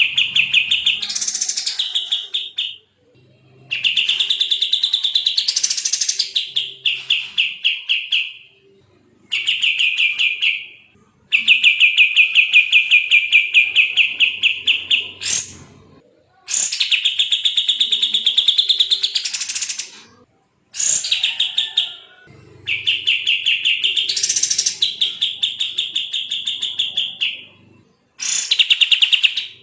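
A kapas tembak songbird singing in long, very fast buzzy trills, each a rapid run of repeated notes lasting a few seconds, with short pauses between phrases and a higher rising flourish inside some of them. This is the dense, rapid-fire "gacor speed rapat" song used as a masteran recording.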